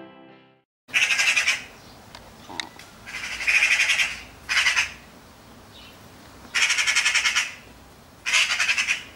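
Eurasian magpie chattering: five bursts of rapid, harsh rattling calls, each half a second to a second long, with a pause of one to two seconds between bursts. This is the alarm chatter magpies direct at a cat.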